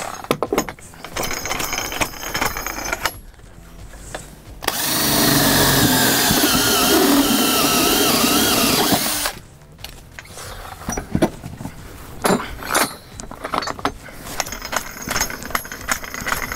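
Cordless drill boring a hole through a vehicle's sheet-metal body panel, running for about four and a half seconds in the middle, its whine wavering as it bites. Before and after it, scattered clicks, rattles and metallic knocks.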